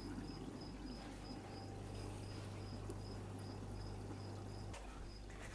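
A faint, high chirp repeating evenly a few times a second over a low steady hum, with one soft click near the end.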